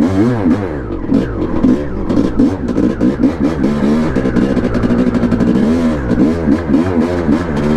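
1989 Honda CR500R's single-cylinder two-stroke engine under way, the throttle worked on and off so its pitch keeps rising and falling, with a steadier stretch about halfway through.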